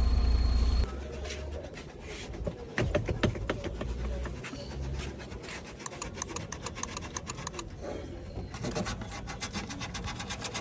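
A car engine's steady running hum stops abruptly about a second in, followed by runs of quick, irregular clicks and ticks of hand work on the car.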